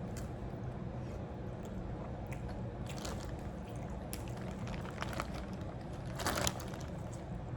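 Close-up eating sounds from a garlic-butter seafood boil: wet chewing, smacking and squishing with small clicks, over a steady low hum. A louder wet burst comes about six seconds in.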